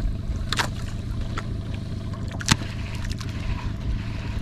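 Boat engine running steadily at low revs, with a few sharp clicks and knocks on board, the loudest about two and a half seconds in.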